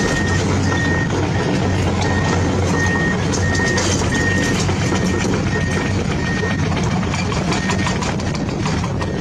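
An RC truck's sound module playing a reversing beeper, a steady series of short high beeps that stops near the end, over a steady diesel-truck engine hum.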